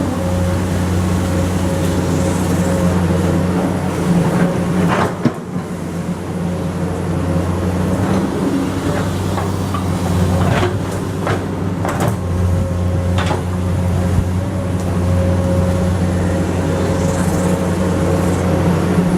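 Komatsu PC200 hydraulic excavator working: its diesel engine runs steadily under load with a thin steady whine, and there are several sharp knocks, one about five seconds in and a cluster between ten and thirteen seconds in.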